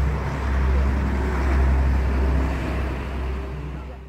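Road traffic noise: a steady low rumble with a hiss above it, fading over the last second.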